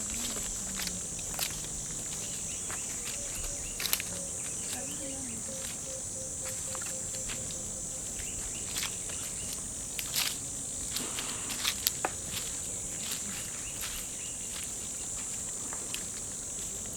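Steady high-pitched drone of jungle insects, with scattered crunching footsteps and snapping twigs on the forest floor. A faint, rapid run of low notes comes a few seconds in.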